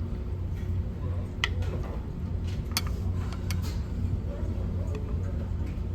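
A few sharp clinks of dishes and cutlery over a steady low hum from the ferry's engines, with a murmur of voices.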